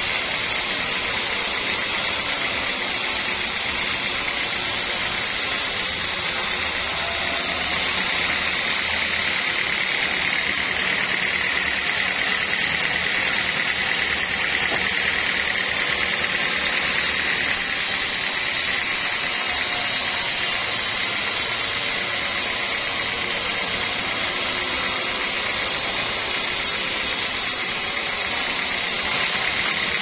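Band sawmill cutting lengthwise through a squared teak beam: the blade and its motor run with a steady, high-pitched whine and hiss.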